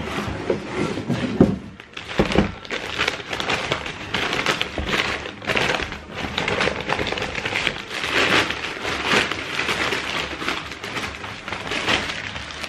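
Paper wrapping being rustled and crumpled by hand while a new pair of trainers is unpacked, in a continuous run of crinkles. There are a few soft knocks in the first couple of seconds.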